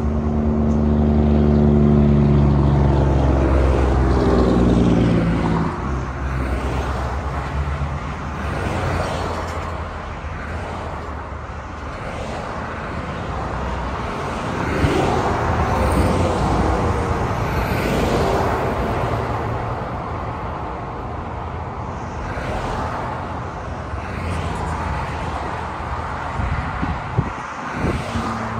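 Highway traffic passing: a semi-truck's engine and tyre hum falls steadily in pitch over the first few seconds as it moves away, then cars, SUVs and trucks go by in a run of tyre-noise swells.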